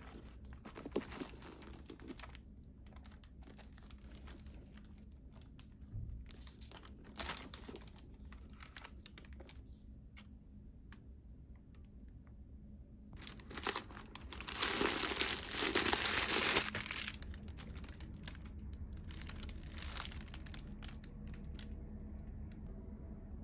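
Clear plastic packaging crinkling and rustling as a handbag is unwrapped and handled, in intermittent bursts of crackles. It is loudest for a few seconds just past the middle.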